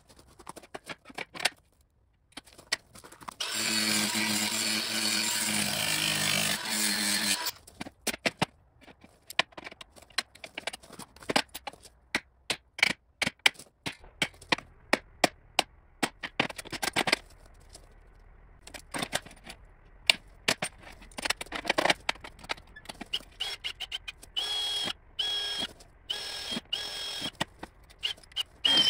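A cordless power tool running steadily while cutting through a steel sheet for about four seconds, followed by scattered knocks and clatter of handling the metal and tools. Near the end a cordless drill runs in several short bursts, drilling holes in the steel plate.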